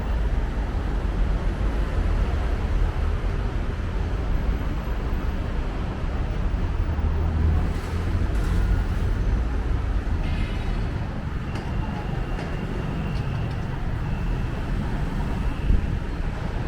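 Busy city road traffic: a steady low rumble of passing engines and tyres.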